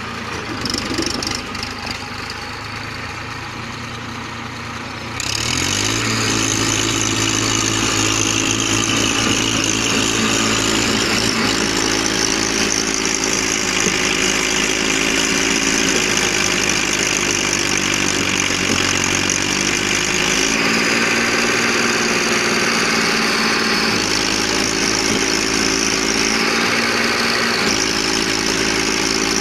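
Massey Ferguson 1035 tractor's three-cylinder diesel engine running, picking up to a louder, higher pitch about five seconds in and then pulling steadily under load, with small changes in engine speed later on.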